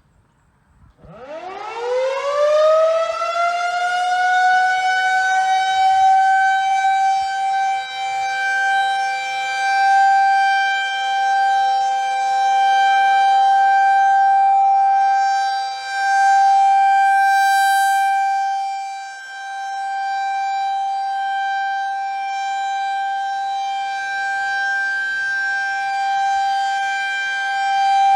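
Federal Signal 2001 electromechanical outdoor warning siren winding up about a second in, its pitch rising fast to a steady wail, and then holding that single steady tone, swelling and fading in loudness every few seconds. It is very loud. This is the siren's monthly tornado-siren test.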